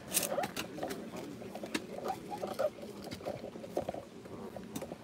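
Hoes chopping into and scraping loose soil as a grave is filled in, giving irregular soft thuds, scrapes and clicks.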